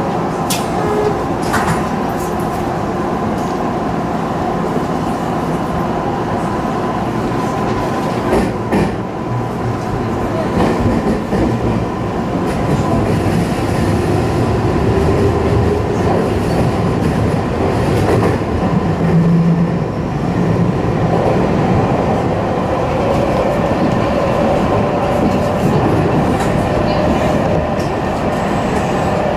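Tokyu Toyoko Line electric train running, heard from the front cab: a steady rumble of wheels on rail with scattered clicks over rail joints and points. A faint whine rises in pitch as the train gathers speed.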